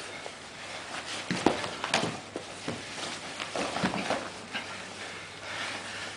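Irregular thumps and scuffs of two grapplers' bodies, hands and bare feet on a rubber-floored mat as they scramble, the sharpest knocks clustered around the second and fourth seconds.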